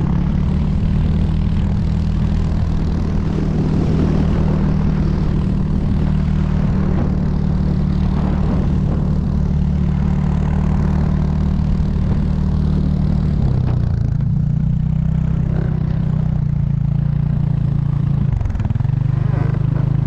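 A motor vehicle's engine running steadily with a drone, under a constant rush of wind noise. Its pitch dips briefly about two-thirds of the way through and again, more sharply, near the end.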